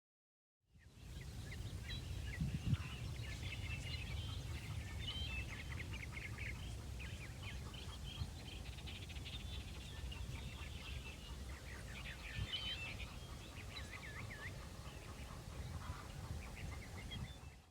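Many birds chirping in quick, short calls, over a low steady rumble; the sound cuts in abruptly under a second in.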